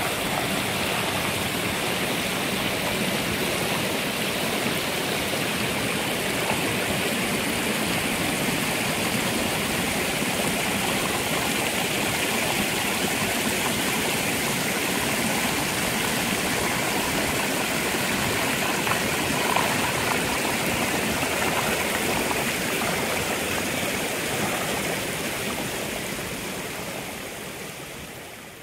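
Water from a fountain's cascade spilling over a long stepped edge into a reflecting pool, a steady rushing splash that fades toward the end.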